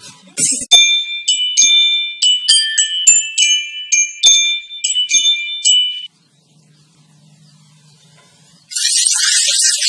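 A chime melody of about a dozen quick bell-like ringing notes lasting some five seconds. It is followed by a faint low hum, and near the end by a loud hiss of water spraying from a garden hose nozzle.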